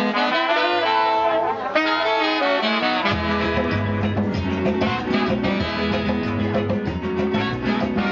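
Live calypso band playing, its saxophones and trumpets carrying the melody together. A bass line and rhythm come in about three seconds in and carry on under the horns.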